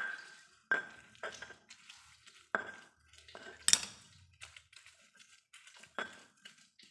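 Stone pestle (ulekan) crushing fried chilies, shallots and tomato in a stone mortar (cobek). The blows come as irregular sharp knocks of stone on stone, each with a brief ring. The loudest comes a little under four seconds in.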